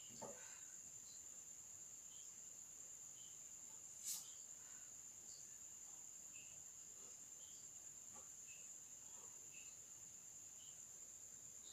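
Faint steady high-pitched trilling of crickets, with scattered faint short chirps and a single sharp click about four seconds in.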